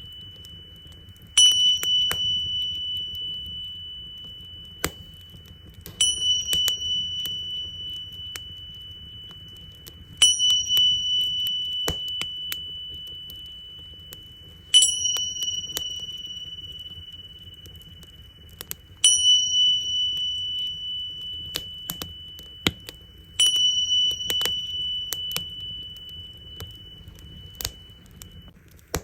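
Tingsha cymbals struck six times, about every four and a half seconds, each strike ringing out in one clear high tone that slowly fades. A wood fire crackles and pops throughout.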